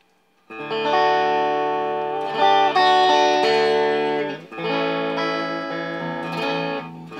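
Donner DTC-100W Telecaster-style electric guitar played through an amp on its bridge pickup: strummed chords ring out from about half a second in, with a louder new chord about two seconds later and another after a short dip near the middle.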